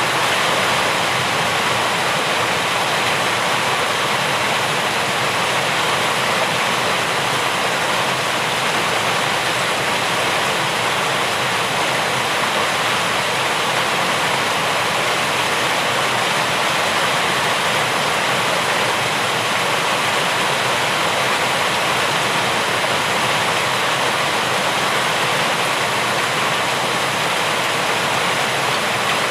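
Steady heavy rain, a dense even rush without separate drops or thunder.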